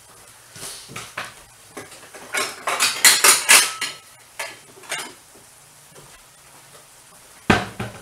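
Spatula scraping and clacking against a cast iron skillet as steak strips are stirred and turned over a faint sizzle. A run of loud scrapes comes about three seconds in, and a single sharp knock near the end.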